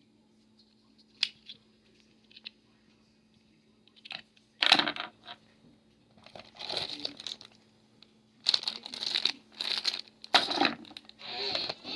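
Rustling, crinkling and small clicks from a computer repair tool kit being handled, in irregular bursts: a few sharp clicks in the first seconds, then longer stretches of rustling from about halfway through.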